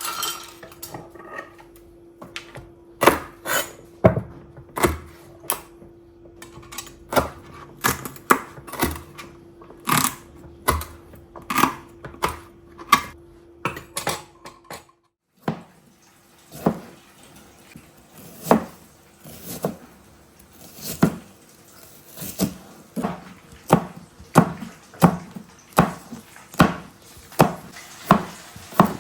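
Kitchen dishes, pans and utensils clinking and knocking in a long run of short sharp strikes, with a brief break about halfway. After the break the strikes come more regularly, about one or two a second. A faint steady hum sits under the first half.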